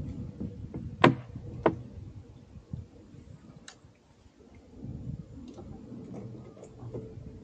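A few sharp clicks, two about half a second apart and a fainter one a couple of seconds later, over a low rumble.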